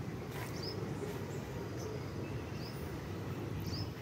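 Strong gusty wind buffeting the phone's microphone as a steady low rumble, with a few short high bird chirps over it.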